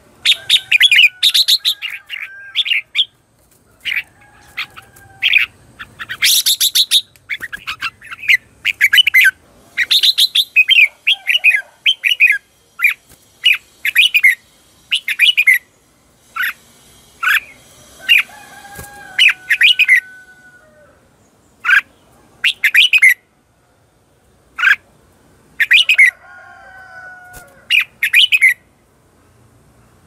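Red-whiskered bulbul calling and singing in quick bursts of short, sharp notes, with a few brief pauses between phrases. These are the fired-up 'chè chéc' calls of a caged decoy bulbul, used to lure wild bulbuls.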